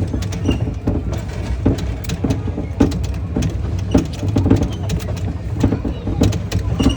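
A train running: a steady low rumble with irregular rattling knocks and clacks.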